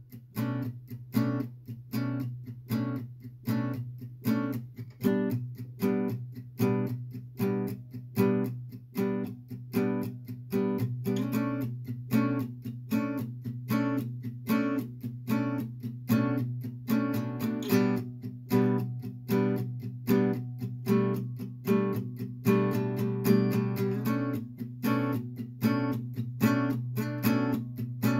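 Background music on acoustic guitar, played in a steady rhythm.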